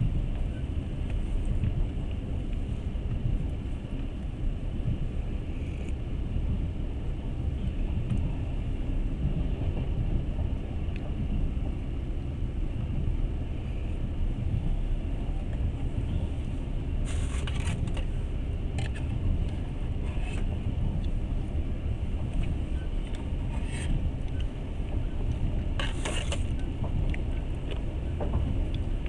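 Passenger train running, a steady low rumble of wheels on track heard from inside the carriage, with a handful of short sharp clacks in the second half.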